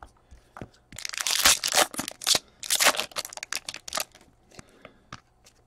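Foil hockey card pack wrapper crinkling and tearing as it is ripped open by hand, in a run of crackly bursts from about a second in to about four seconds in, followed by a few faint clicks.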